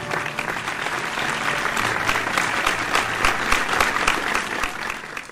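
Audience applause, dense clapping that builds and then fades out near the end.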